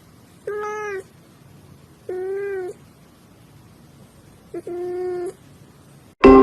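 A cat meowing three times, each meow about half a second long with a gentle rise and fall in pitch. Right at the end a loud, bright chime strikes.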